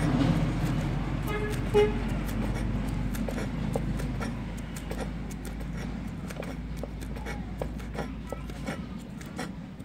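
Kitchen knife chopping green onions on a wooden cutting board: a run of quick knocks of the blade on the board, over a steady low rumble. A short tone sounds about two seconds in, the loudest moment.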